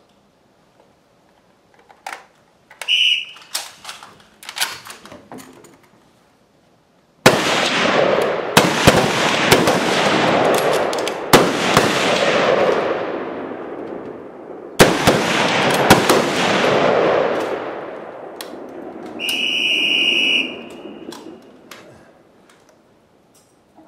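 A short whistle blast, then after a few clicks a relay of rifles fires many shots with long echoing tails for about twelve seconds. A long whistle blast near the end signals that the timed exposure is over.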